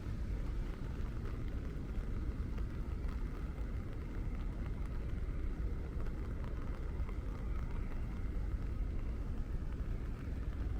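Steady city street ambience in the rain: a low, constant traffic rumble with a light hiss of rain over it.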